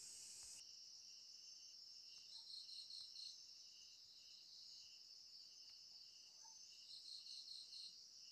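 Near silence with faint insects chirping: a thin, steady high trill with a soft chirp about twice a second, and two short spells of quicker chirping about two and a half and seven seconds in.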